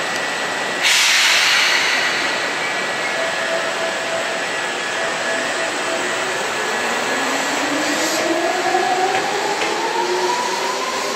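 Seibu 2000-series electric train at the platform. About a second in there is a loud burst of hissing air. From about seven seconds the traction motors whine, rising steadily in pitch as the train accelerates.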